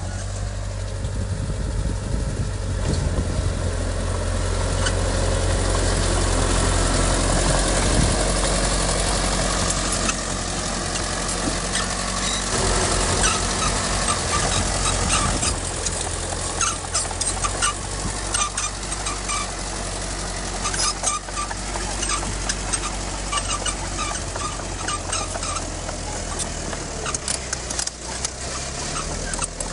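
Heavy diesel earthmoving machinery running steadily, with scattered clanks and clicks through the second half.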